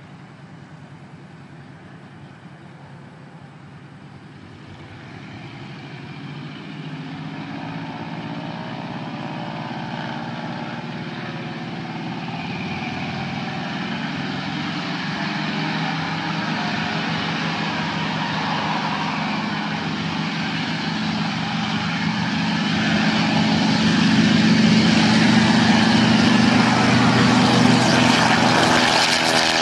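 Avenger torpedo bomber's Wright R-2600 radial engine running up for takeoff, quiet at first, then growing steadily louder from about five seconds in as the plane rolls down the runway and lifts off, loudest over the last few seconds as it passes close by.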